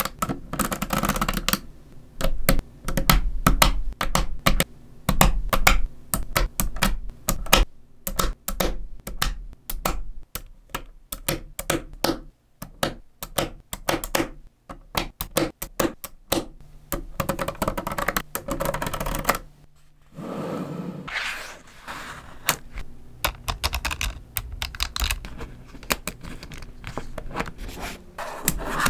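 Small neodymium magnet balls clicking and snapping together as they are pressed into place by hand: a rapid, irregular run of sharp clicks. After a short pause about two-thirds of the way through, the clicks are softer and sparser over a light rubbing.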